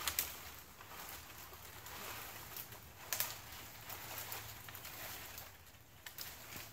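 Quiet outdoor sound: scattered short clicks and knocks over a faint, steady low hum.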